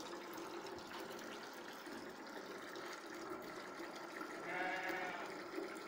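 Water pouring steadily from a small pipe, with a sheep bleating once near the end.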